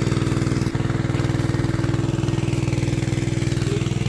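Small engine-driven water pump running steadily at a constant speed, draining a fish pond.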